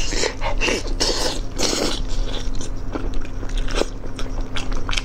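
Close-miked biting and tearing into an oily braised chicken piece, with wet tearing sounds for about the first two seconds. After that comes closed-mouth chewing with scattered small wet clicks.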